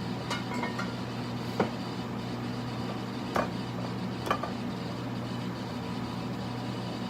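Steady low hum of room background noise, with a few short, faint clicks or knocks in the first half.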